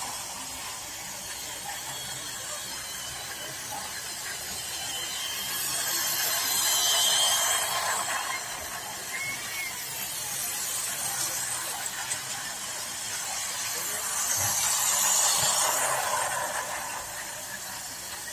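Toy trains running on plastic track, their small motors and gears whirring with wheel rattle. The sound swells twice, about seven and about fifteen seconds in, as trains pass close.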